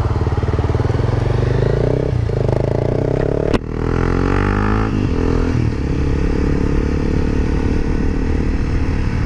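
Honda CBR300R's single-cylinder engine pulling away under load and rising in pitch, with a gear change about two seconds in and a sharp click about three and a half seconds in. The revs then drop and the engine settles into a steady cruise.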